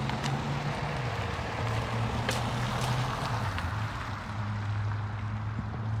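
A vehicle engine running at low revs, a steady low hum that shifts slightly in pitch, under a haze of wind or traffic noise with a few faint clicks.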